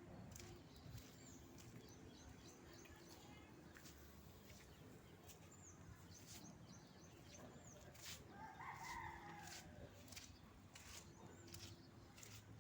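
Near silence with a rooster crowing faintly once, about eight seconds in, plus a few high bird chirps and scattered light clicks.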